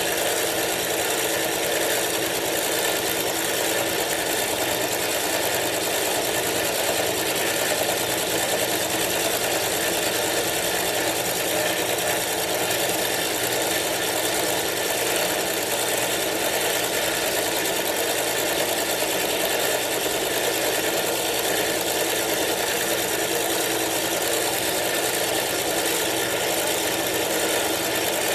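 Milling machine running steadily.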